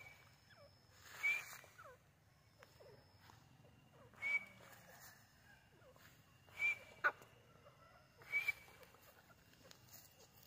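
Grey francolin (Irani teetar) calling: four short, loud whistled notes a couple of seconds apart, with a sharp click just after the third.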